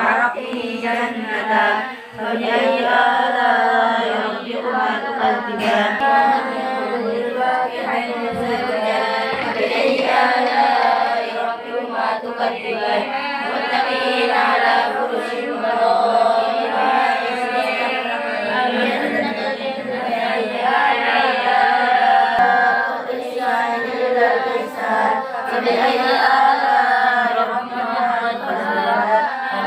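Many girls reciting the Qur'an aloud at the same time, their voices overlapping in a continuous chant.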